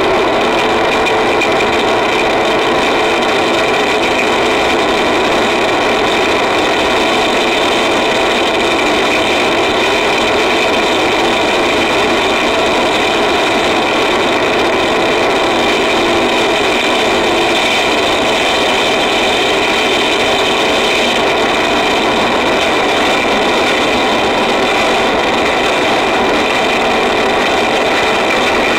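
Harsh noise wall: a thick, unbroken mass of distorted electronic noise at constant loudness, with steady droning tones running through it.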